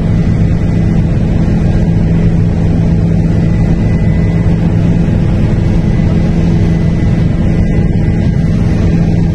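A steady engine drone at one unchanging pitch, a machine running at constant speed.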